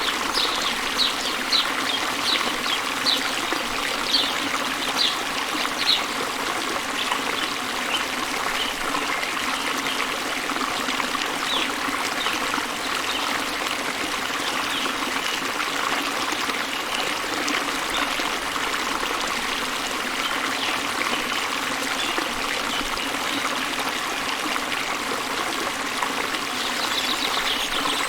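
Small waterfall and river flowing with a steady, even rush of water. A run of short high-pitched notes sounds over it, about once or twice a second, for the first six seconds.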